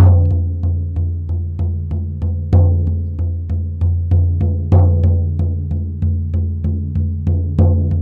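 Hand-held shamanic frame drum beaten with a padded beater in a steady shamanic journey rhythm, about three deep booming beats a second, with a few harder accented strokes.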